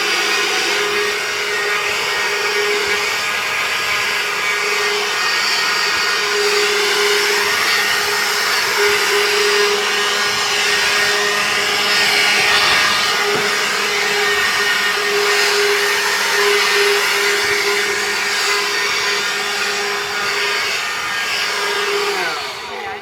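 Leaf blower running steadily with a loud rushing hiss and a constant motor hum, blowing debris off harvested berries in a paddling pool. It is switched off near the end, winding down in pitch.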